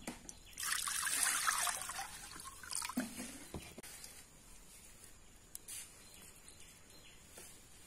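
Water poured into a glass bowl, a splashing pour of about two seconds, followed by a soft knock. Then faint drips as lime juice is squeezed into the water.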